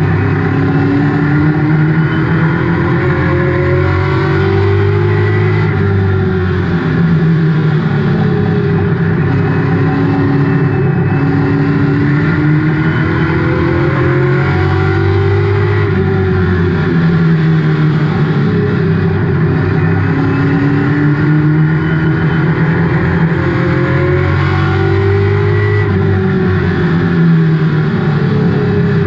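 Race car engine heard from inside its caged cockpit at racing speed. Its pitch rises as it accelerates and falls back as it slows, over and over, every five or six seconds.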